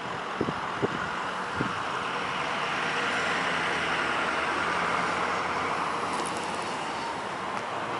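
Road traffic noise: a passing vehicle swells and fades, with a few light clicks in the first two seconds.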